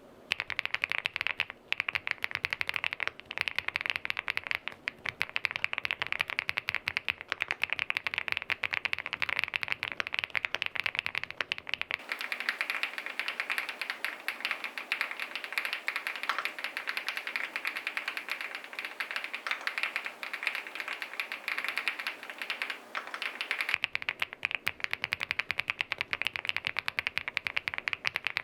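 Fast, continuous typing on an SPM Joyakdol75 aluminium-case custom mechanical keyboard with SPM Jelly switches: a dense stream of key clacks. For about ten seconds in the middle the deep part of the sound drops away, leaving a thinner, brighter clacking.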